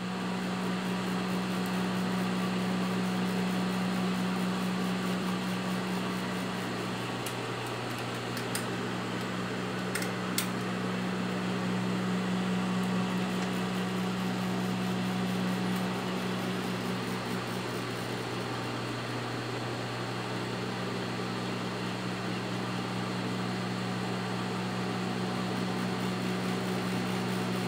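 Steady low electric motor hum, with a few light clicks about a third of the way in.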